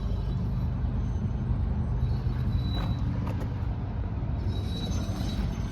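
Case TV370 tracked compact loader's diesel engine idling steadily.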